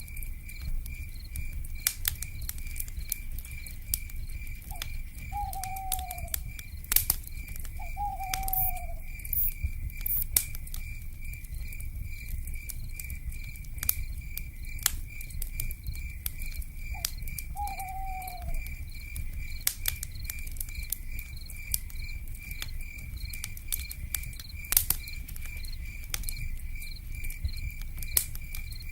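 Night forest ambience: an insect chirps steadily at about two pulses a second over the low rumble and scattered sharp crackles of a wood fire. Three short, falling owl calls come about 5, 8 and 17 seconds in.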